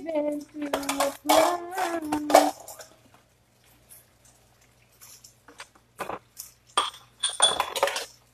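A woman's voice singing a few held notes for the first couple of seconds. Then dishes and cutlery are handled on a kitchen counter: scattered light clicks, and ringing clinks about six seconds in and again near the end.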